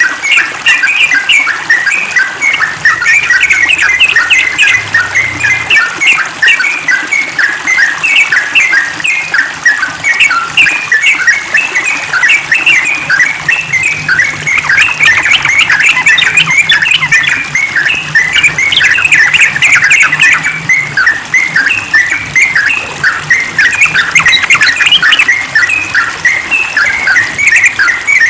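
Yellow-vented bulbuls (trucukan) singing a fast, unbroken chatter of short bubbly notes, the dense 'ropel' song used to call other bulbuls.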